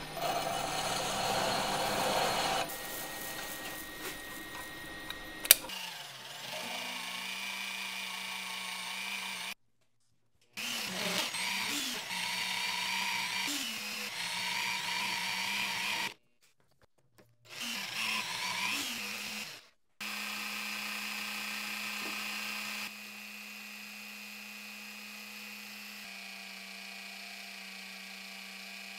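Electric magnetic drill press running and cutting holes in steel plate, a steady motor whine whose pitch wavers as the cutter loads up. Several separate cuts follow one another, each starting and stopping abruptly, with two short silences between them.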